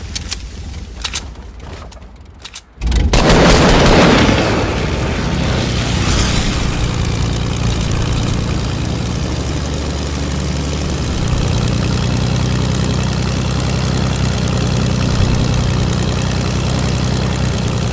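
Airplane engine noise heard from inside the aircraft. It is quiet with a few clicks at first, then about three seconds in it jumps suddenly to a loud, steady drone with a low hum.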